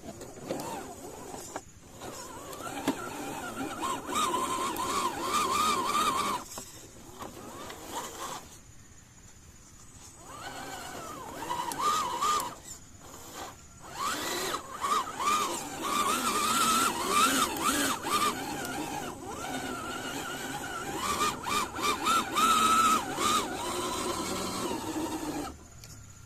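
Electric motor and gearbox of a 1/10 scale RC crawler pickup whining, the pitch rising and falling with the throttle. It runs in spells, dropping away for a couple of seconds near the middle and again near the end.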